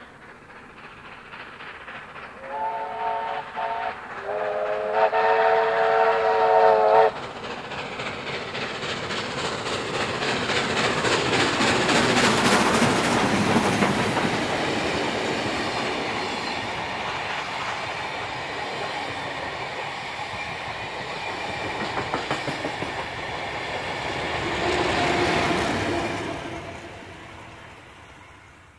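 Double-headed steam train, NSW C32 class 3265 and C35 class 3526, sounding its steam whistle as it approaches, a short blast and then a longer one. It then runs past with the locomotives' exhaust and wheels clattering over the rails, the carriages rolling by, and the sound fades away near the end.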